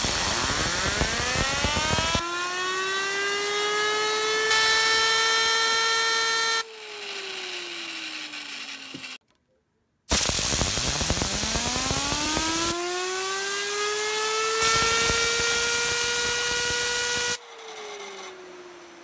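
Compressed air hissing from an air hose as it spins up an aluminium bi-spinner fidget spinner held in a clamp: the spinner's whine rises in pitch and levels off, then when the air stops it falls in pitch as the spinner coasts. This happens twice.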